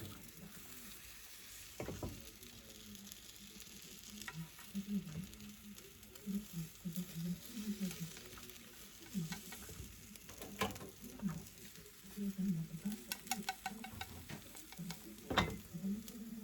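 Food sizzling in a frying pan while being stirred, with a steady frying hiss and a few sharp clicks of a utensil against the pan, loudest about eleven and fifteen seconds in.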